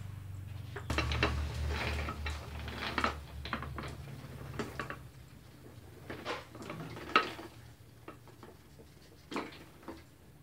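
Metallic clanks and clinks from hands working on the cylinders and rollers of a Toko 810 offset printing press, over a low machine hum that fades out about four seconds in.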